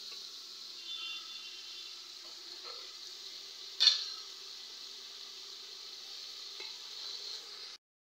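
Vegetables and Malabar spinach leaves sizzling steadily in hot oil in an aluminium pot, with one sharp knock a little under four seconds in. The sound cuts off briefly near the end.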